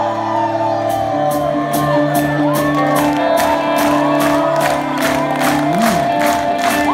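A rock band playing live in a hall: held guitar notes and a singing voice over an even beat of about two to three strokes a second that sets in about a second in, with the crowd shouting and whooping.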